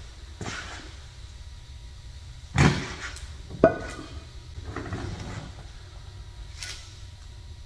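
Metal parts being handled in a garage: a heavy thump about two and a half seconds in, then a sharp metallic clank that rings briefly, followed by softer scraping and rustling.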